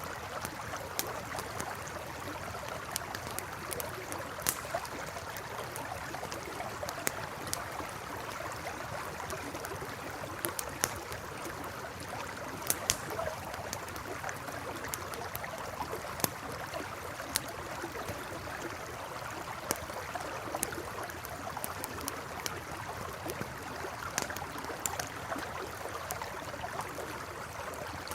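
Campfire crackling with sharp, irregular pops over the steady rush of a flowing river.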